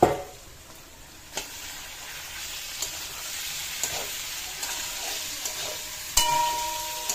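Chopped food sizzling in hot oil in a black wok, stirred with a spatula, the frying hiss building steadily. The spatula knocks against the pan a few times, with a louder metallic clank about six seconds in that rings on briefly.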